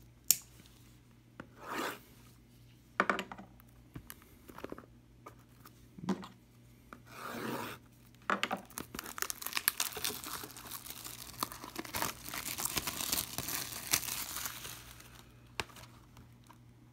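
Plastic shrink wrap on a trading-card hobby box being slit with a small folding knife, with scattered scrapes and clicks. From about eight seconds in the wrap is torn and crinkled off in a dense run of crackling that stops about a second and a half before the end.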